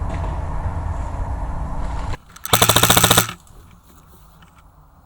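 Airsoft rifle firing a rapid full-auto burst lasting under a second, about halfway through. It is preceded by a steady low rumble that cuts off abruptly.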